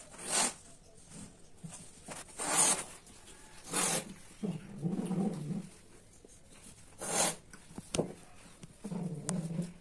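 Cats giving short, breathy hisses and low, longer growling sounds in separate bursts.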